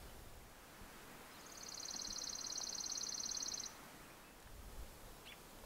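A small bird's high, rapid trill of evenly spaced notes, about fifteen a second, starting about a second and a half in and lasting about two seconds, over faint outdoor background.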